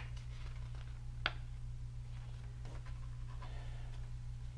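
Paper pages of a picture book being handled and turned, faint rustling with one sharp tap about a second in, over a steady low hum.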